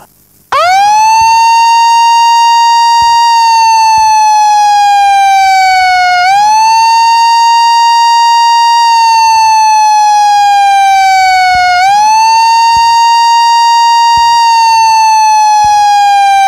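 Siren giving the imsak signal that marks the start of the Ramadan fast, sounding loudly in repeated wails. About half a second in it rises quickly to a high tone, then sinks slowly for about five seconds before jumping back up, twice within the span.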